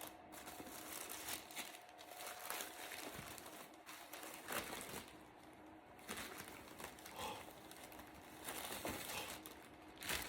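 Paper wrapping rustling and crinkling in short, irregular handfuls as a package is unwrapped.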